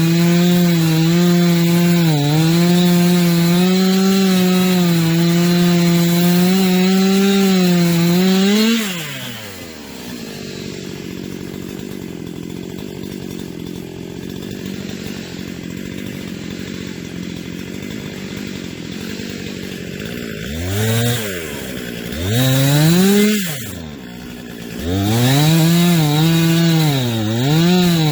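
Two-stroke chainsaw at full throttle cutting wood, its pitch dipping and recovering as the chain loads up in the cut. About nine seconds in it drops to idle, is blipped twice, then goes back to full throttle in the wood near the end.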